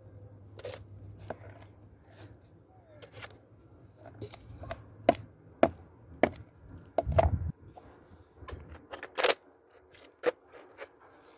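Irregular sharp knocks and taps, over a dozen of them, with some light scraping, as objects are handled close by; a dull low thump about seven seconds in.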